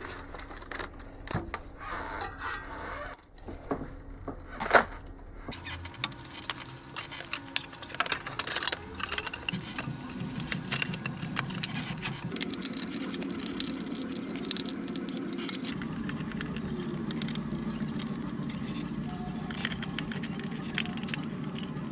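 Bundles of power-supply wires and the metal ATX power-supply case being handled on a workbench: rustling, clicks and light knocks. A low steady hum comes in underneath about ten seconds in.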